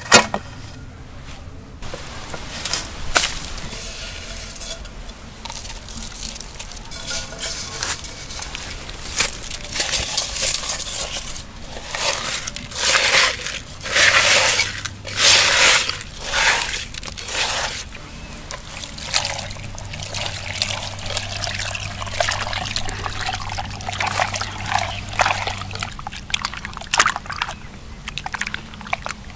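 Water sloshing and splashing in uneven bursts as murrel fish are cleaned in water.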